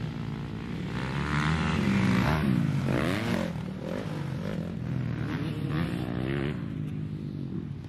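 Several dirt bike engines revving up and down as the bikes ride the track and clear a jump. The engine pitch rises and falls, loudest about two to three seconds in.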